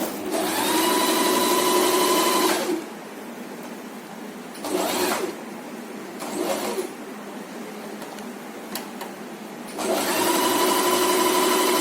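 Usha Janome Stitch Magic electric sewing machine stitching a built-in decorative pattern stitch in bursts. It runs for about two and a half seconds, gives two short bursts in the middle, then starts again near the end and keeps going.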